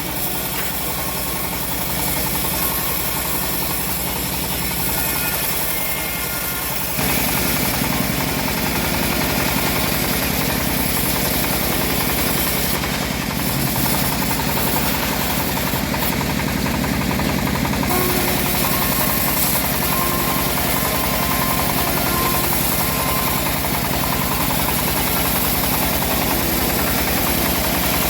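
Engine-driven homemade bandsaw mill running steadily, growing louder and brighter about seven seconds in.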